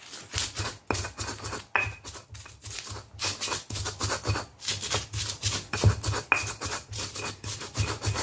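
Stone pestle grinding red chilies with sugar and salt in a stone mortar (Indonesian cobek and ulekan). A quick, rhythmic gritty scraping and crushing, several strokes a second.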